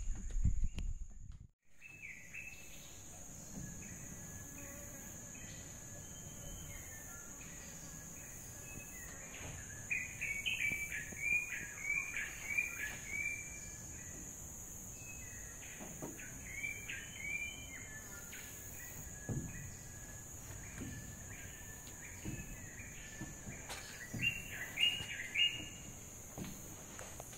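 Tropical forest ambience: birds calling in clusters of short repeated chirping notes over a steady high-pitched insect drone. A brief low rumble at the very start cuts off suddenly.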